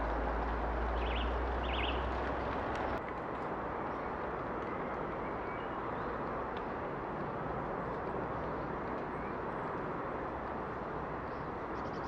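Steady outdoor background noise with a low rumble that drops out suddenly about three seconds in, and two short high chirps in the first two seconds.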